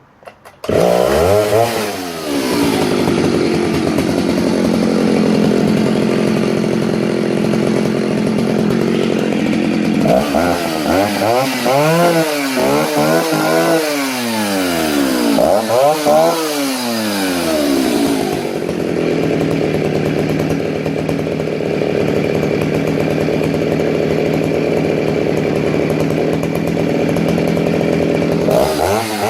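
Vintage Stihl 08S 56cc two-stroke chainsaw starting up about half a second in. It runs at a steady high idle on the throttle lock, is revved up and down several times, settles to a lower steady idle, and revs again near the end.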